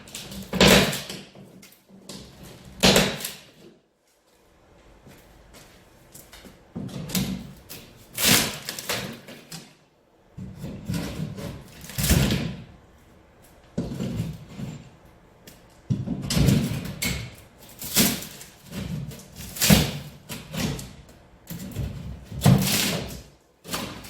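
Indexing pry bar levering the boards of a wooden pallet box apart: repeated wooden creaks, cracks and knocks, one every second or two, with a short lull about four seconds in.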